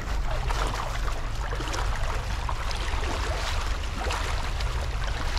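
A steady low rumble of wind on the microphone, with many small splashes and footsteps through shallow water and wet ground.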